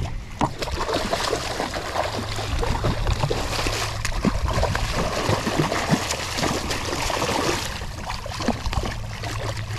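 Lake trout thrashing at the surface beside a kayak while a landing net is worked around it: continuous splashing and churning water with many quick slaps.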